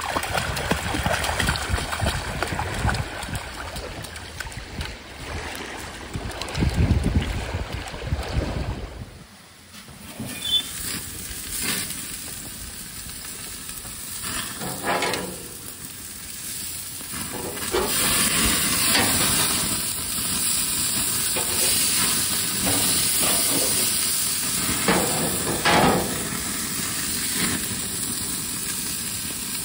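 Burger patties sizzling on a gas grill: a steady hiss that gets louder about halfway through, with a few short clicks. Before that, a stretch of water splashing as a dog wades in shallow water, with a low rumble.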